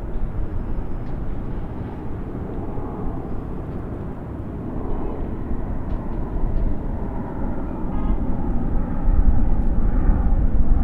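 Distant highway traffic: a steady wash of tyre and engine noise that swells a little about nine seconds in as heavier vehicles pass.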